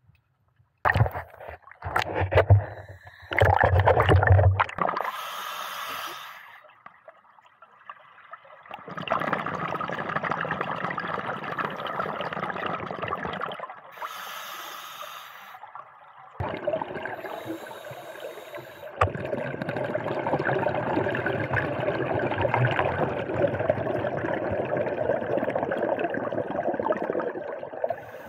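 Scuba diver breathing through a regulator underwater: short hissing inhalations alternating with long bubbling exhalations. Before that there are a few seconds of bumps and knocks.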